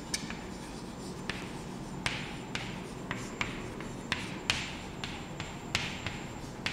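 Chalk writing on a chalkboard: a string of sharp taps as the chalk strikes the board, with a few short scratching strokes between them.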